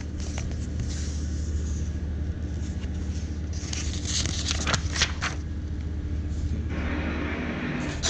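Paper pages of a printed manual being handled and turned, with short rustles about four to five seconds in and a longer scraping rustle near the end, over a steady low hum.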